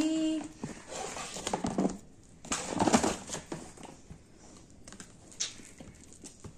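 Paper carrier bag rustling and crinkling as a boxed phone is pulled out and handled, in uneven bursts with small knocks, loudest around three seconds in.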